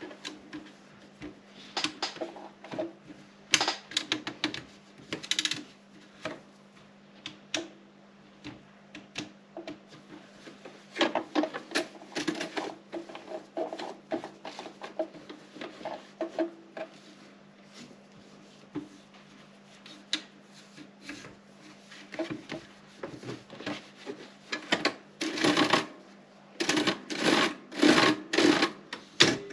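Erika 30 typewriter being typed on: irregular keystrokes striking the paper, some spaced out and others in quick runs, with the strokes coming faster and louder near the end.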